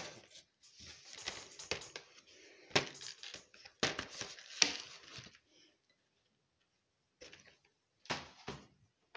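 Cardboard chocolate advent calendar and its plastic tray crackling and crinkling as they are handled, with many sharp crackles for about five seconds. A few shorter bursts of crackling come near the end.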